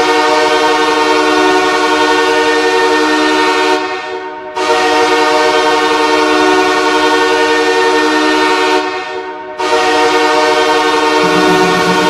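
Goal horn sounding three long blasts of about four seconds each, a chord of steady tones with short breaks between blasts.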